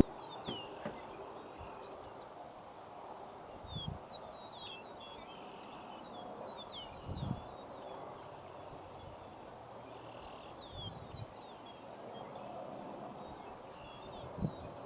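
Several birds giving short, high chirps and quick downslurred calls, scattered throughout, over a steady outdoor background hiss, with a few faint low thumps.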